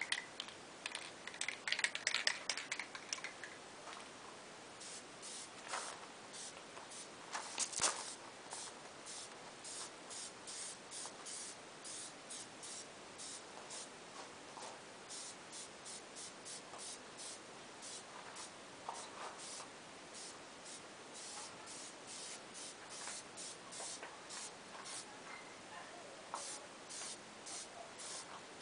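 Aerosol spray of peelable liquid wrap being laid onto a motorcycle fuel tank as a first coat: a long series of short hissing spray bursts, often about two a second, some held a little longer.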